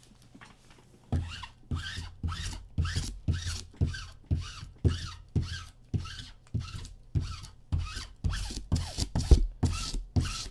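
Rhythmic rasping strokes, about two a second, each with a soft low thump, as of something being rubbed or shaken back and forth by hand. They start about a second in.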